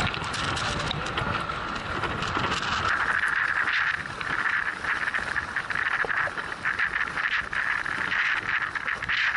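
Water splashing and slapping against a sailing kayak's hull as it pounds through choppy, wind-driven waves, with wind rushing over the microphone and spray striking the camera. The hiss grows stronger from about three seconds in.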